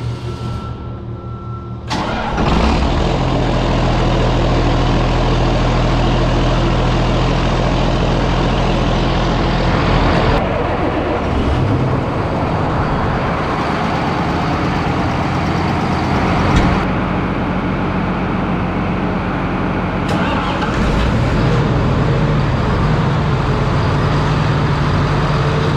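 Heavy vehicle engine running steadily, starting loudly about two seconds in, with a few abrupt shifts in its sound.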